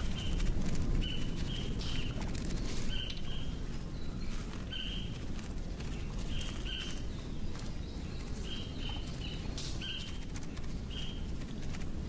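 Natural ambience: short high chirps, often two in quick succession, repeating every second or two over scattered clicks and a steady low rumble.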